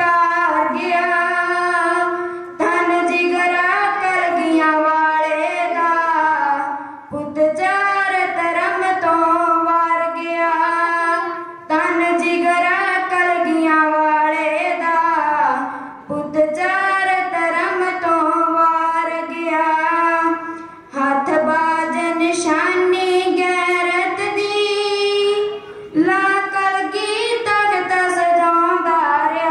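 A girl singing a poem solo into a microphone, unaccompanied, in melodic phrases of a few seconds with short breaks for breath between them.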